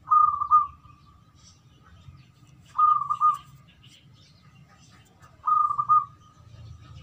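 Zebra dove (perkutut) cooing: three short phrases of quick stuttering coos, each under a second long, about two and a half seconds apart.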